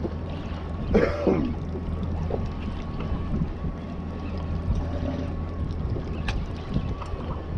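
Boat's motor running with a steady low hum, with wind and water against the hull. A short voice sounds about a second in.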